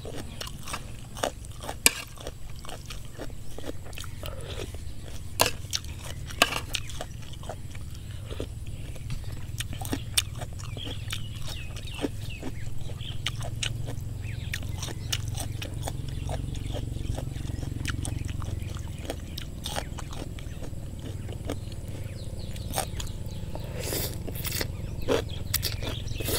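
Close-up eating sounds: a person chewing rice noodles and crunchy vegetables, with scattered sharp clicks of a metal spoon against the plate, over a steady low rumble.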